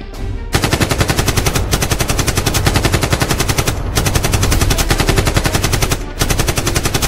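Rapid automatic gunfire, machine-gun fashion, in several long bursts broken by short pauses: a gunfire sound effect laid over toy blasters being fired.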